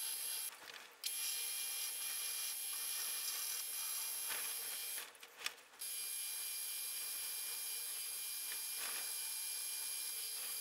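Drilling machine running steadily with a fixed high whine as a twist drill cuts into a square metal bar block, throwing off curled swarf. The sound briefly drops away twice, about half a second in and about five seconds in.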